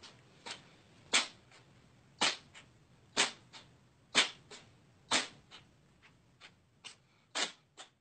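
A domestic cat sneezing over and over, about eight sharp sneezes roughly a second apart, most followed by a softer snort.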